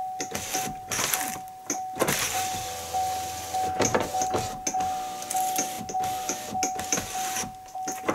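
GMC Sierra's door-open warning chime repeating about twice a second. Under it the power window motor runs the glass up and down past a newly fitted side window deflector, with knocks as the glass seats.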